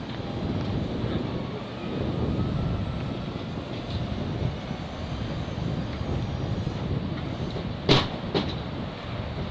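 Wind buffeting the microphone in a steady rumble, with two sharp snaps close together near the end.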